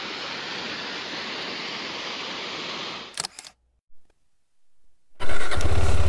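A waterfall's steady rush of water for about three seconds, then a couple of clicks and a moment of near silence. About five seconds in, the KTM 390 Adventure's single-cylinder engine comes in loudly, running with a fast, even low pulse.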